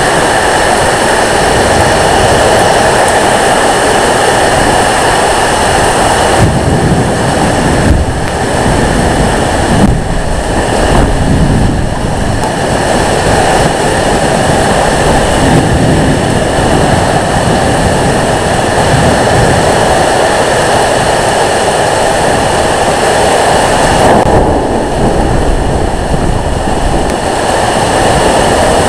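Heavy rain and strong microburst winds making a loud, steady rush. Stronger gusts buffet the microphone with low rumbles for a few seconds about a quarter of the way in.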